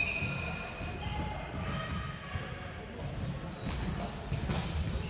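Gym sounds of an indoor volleyball game: sneakers squeaking briefly on the court floor, with two sharp thuds from the ball late on.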